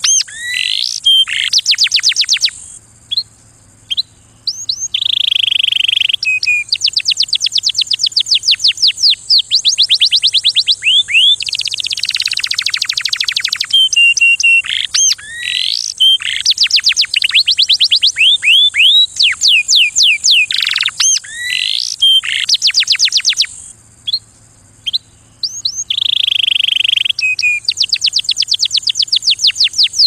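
Male domestic canary singing: a long song of rapid trills, each a run of quick repeated notes, moving from one trill to the next. There are two short pauses, about three seconds in and again near the end.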